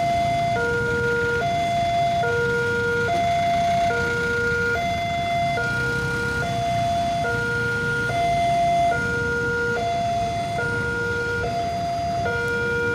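Railway level-crossing warning alarm sounding an electronic two-tone chime, switching between a higher and a lower tone about every 0.8 seconds, the signal that a train is approaching and the barriers are coming down. Idling lorry and motorcycle engines run underneath.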